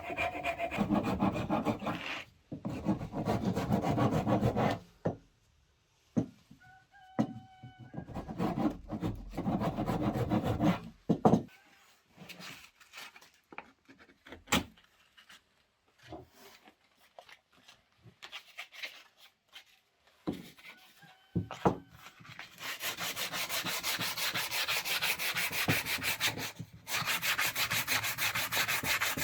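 Wood being shaped by hand with a rasp, in bouts of fast rasping strokes. The strokes are broken by a quieter stretch of scattered knocks and clicks in the middle, then resume in a long, brighter bout about two-thirds of the way through.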